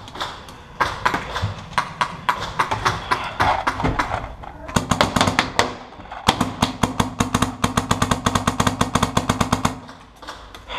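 Paintball marker firing in fast strings, about ten shots a second, from about five seconds in until near the end, with a steady whir beneath from its Empire Halo electronic hopper feeding paint. Scattered single paintball shots come before that.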